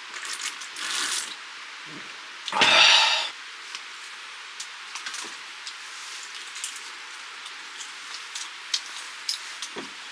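A metal fork clicking and scraping on a wooden board while cutting a hotteok, with small sharp ticks scattered through, over a steady hiss. One louder rushing burst, under a second long, comes about three seconds in.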